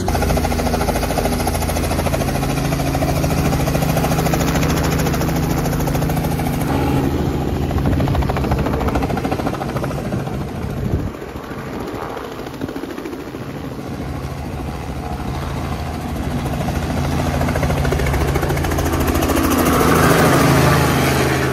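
Light helicopter with a two-bladed main rotor running, its engine and rotor giving a steady drone with a rapid, even blade beat. Near the end it grows louder as the helicopter climbs away and passes low overhead.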